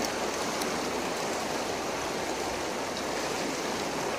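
Steady rushing of a river's flowing water, with a few faint clicks.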